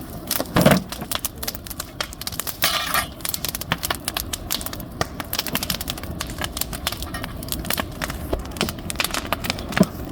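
Large bonfire crackling, with fast, irregular snaps and pops throughout.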